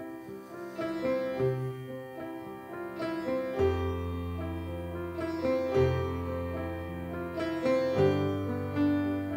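Piano playing the slow instrumental introduction to a worship song: a gentle, repeating pattern of sustained notes, with deep bass notes coming in about three and a half seconds in and changing every two seconds or so.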